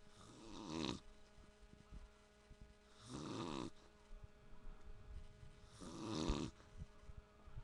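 A man snoring in his sleep: three snores about three seconds apart, each lasting under a second.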